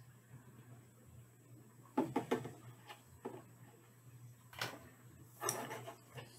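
A few light knocks and clatters of plastic paint cups being handled and set down on a table: a quick cluster about two seconds in, another knock later, and a brief scrape near the end.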